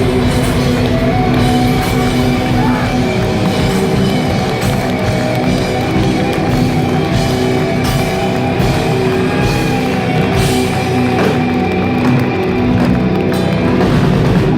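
Live heavy metal band playing: electric guitars holding chords over a drum kit. The phone recording is overloaded, so the sound comes through harsh and distorted.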